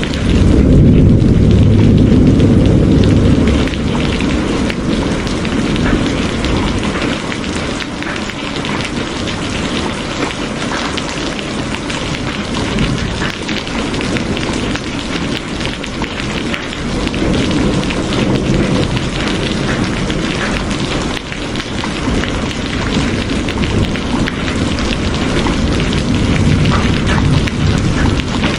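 Steady rain pattering down. A low rumble of thunder swells in the first few seconds and fades, and fainter low rumbles return later.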